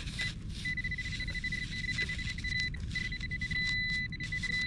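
Nokta AccuPoint pinpointer sounding its high-pitched alert: a few short beeps, then a nearly continuous tone with brief breaks as its tip is held close to a buried metal target in the sand.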